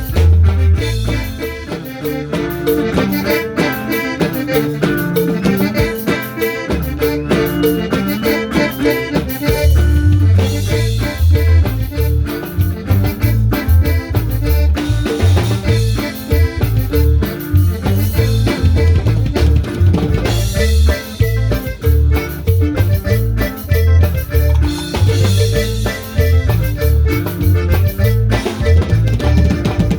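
A band jam of Latin dance music: drum kit and bass under a melodic lead, with held notes in the middle register. The bass drops back for several seconds early on, then comes in strongly again about ten seconds in.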